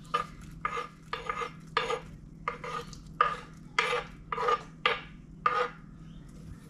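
A utensil stirring and scraping in a metal pot of soup, clinking against the pot about twice a second in an uneven rhythm.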